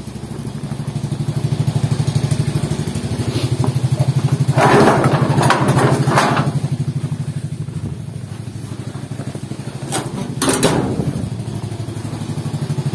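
Alpha moped's single-cylinder four-stroke engine idling while it warms up, a steady even pulsing beat. Two short bursts of scraping noise come about five and ten seconds in.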